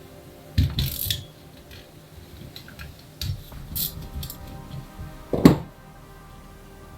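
Irregular metal clinks and knocks as tools and carburettor parts are handled on a workbench, over background music. The loudest knock comes about five and a half seconds in.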